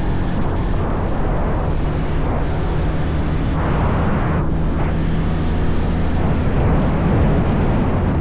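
Single-cylinder motorcycle engine running at a steady cruise while riding, with heavy wind buffeting on the microphone.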